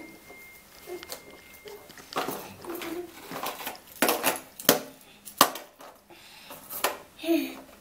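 Hard plastic knocks and clatters, about half a dozen spread over several seconds: a baby slapping the plastic play tray of a baby walker.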